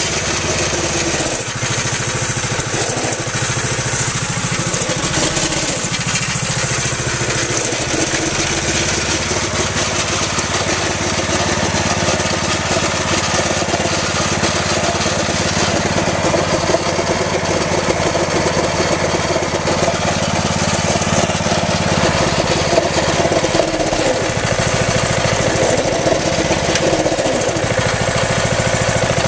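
Quarter midget kart's small engine running steadily for the whole stretch, with slight changes in pitch and level later on. Its worn clutch pulls a bit at idle.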